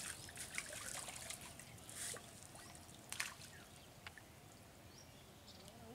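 Small splashes and trickling of shallow pond water stirred by hands at the bank, in scattered short bursts, the loudest about three seconds in.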